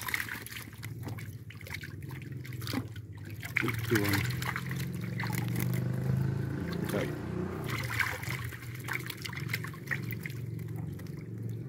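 Water splashing and crackling as live fish thrash in a crowded net and are scooped out with a hand dip net, with brief low voices now and then.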